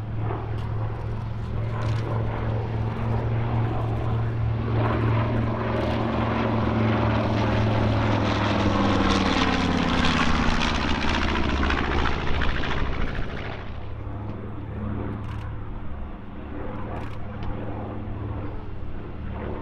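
A B-25 Mitchell bomber's twin Wright R-2600 radial engines running through a low pass. The sound grows to its loudest about ten seconds in, the engine note falls in pitch as the bomber goes by, and it turns quieter after about thirteen seconds.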